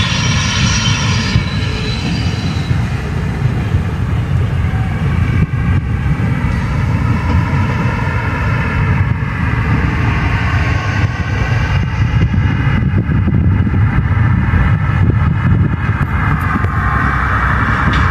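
Diesel locomotive of the SM42 class running as it approaches with a train of wagons: a steady low engine rumble with a whine above it that shifts slightly in pitch.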